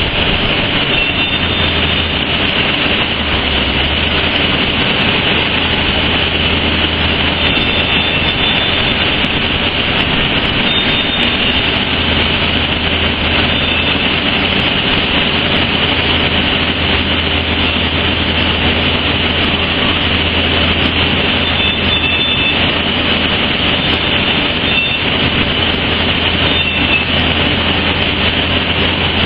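Loud, steady industrial roar from hot-metal works around a vessel of glowing molten material giving off thick steam, with a low hum underneath and faint high steady whistling tones.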